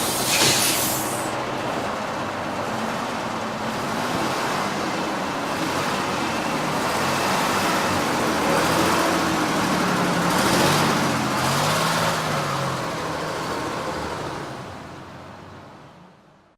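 Bus running, its engine note rising and falling through the middle, with two short bursts of air hiss, one near the start and one about two-thirds through. The sound fades out near the end.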